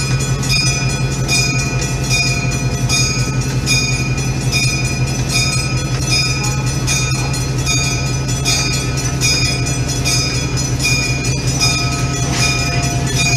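EMD F7A diesel locomotive idling with a steady low drone, while a locomotive bell rings over it about once every two-thirds of a second. The bell signals the train's departure.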